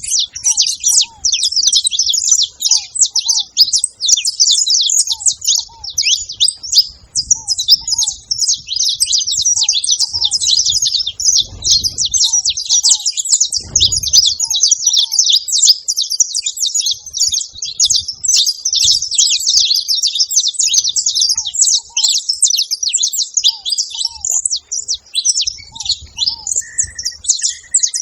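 Saffron finches singing and chattering non-stop in dense, rapid high chirps, with faint, short, lower notes repeating every second or two beneath them.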